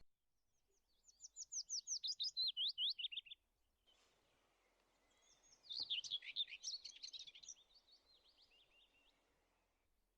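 A small songbird singing two phrases of quick, high, downward-sweeping chirps, about five a second, each phrase lasting two to three seconds. A single sharp click is heard during the second phrase.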